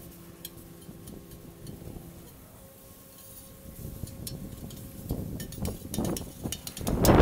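A metal utensil clinking and scraping lightly against a flat-top griddle plate while bacon strips are turned. Near the end, wind buffets the microphone.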